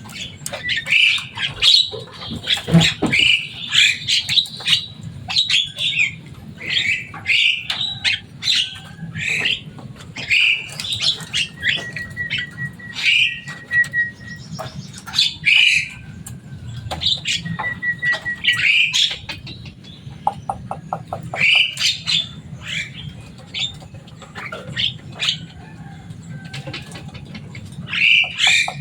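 Javan myna chattering: a long run of short, harsh calls, with a few clear whistled notes held for a second or two and a fast rattle of clicks about two-thirds of the way through.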